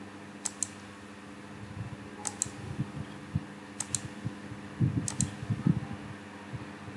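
Computer mouse clicking four times, each click a quick double tick of press and release, with a few soft low knocks around the middle over a steady faint hum.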